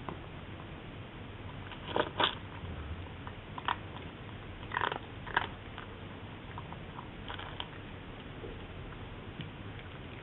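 A cat eating dry kibble: scattered, irregular crunches over a steady hiss.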